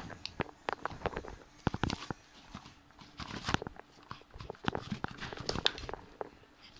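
Slime being squeezed and pulled apart by hand, giving irregular squelches and clicks, as it is forced out to free a coin.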